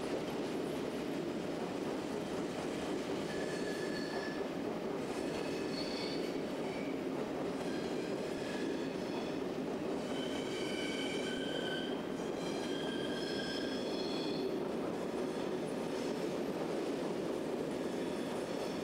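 Passenger train of SBB coaches behind an Re 460 electric locomotive rolling out over station points, with a steady low rumble. Between about 3 and 15 seconds in, the wheels squeal in a series of short high tones as they take the curved turnouts.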